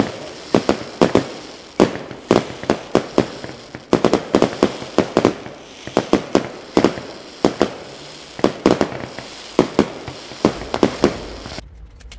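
Sharp, irregular clicking of laptop keyboard keys being pressed, several a second in quick clusters, stopping shortly before the end.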